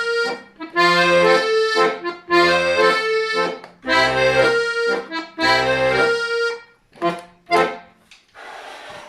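Accordion playing sustained chords over bass notes in short phrases, ending with two short chords about seven seconds in, followed by a brief soft noise.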